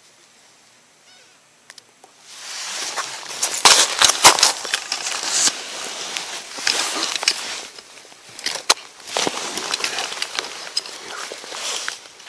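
Crunching, scraping and rustling right at the microphone as a metal gaff is worked into an ice-fishing hole, with many sharp clicks and cracks. It starts about two seconds in and is loudest a couple of seconds later.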